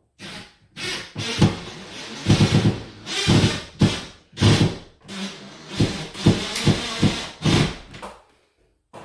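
A screw being driven into the closet organizer, in a string of short, irregular bursts of about half a second each.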